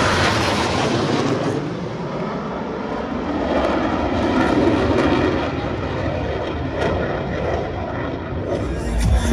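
Formation of Blue Angels F/A-18 jet fighters flying past: a steady rushing jet-engine noise that swells a little in the middle.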